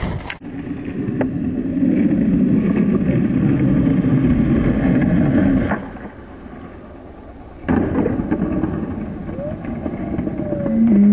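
Skateboard wheels rolling hard over concrete, going quieter for a moment as the board leaves the ground, then a sharp clack of the landing about eight seconds in and the wheels rolling on again.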